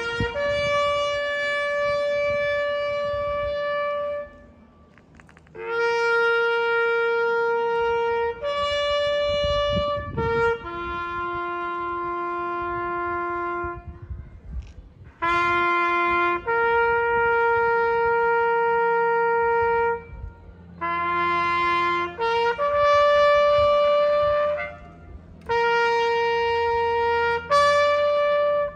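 A solo trumpet playing a slow ceremonial call of long held notes, one melodic line with short breaks between phrases and a longer pause about four seconds in.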